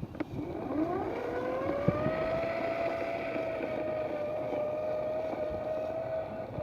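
Small motor of a Fisher-Price Bubble Mower toy winding up over the first two seconds to a steady hum, then running evenly until it cuts off near the end.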